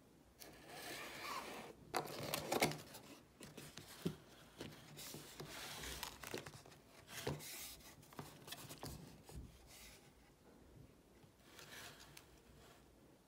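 Paperboard cake box being opened by hand: its flaps are pulled and folded back, with the cardboard and the wrapping paper inside rustling and crinkling, and a few sharp clicks and snaps. The handling stops about ten seconds in, with one more short rustle near the end.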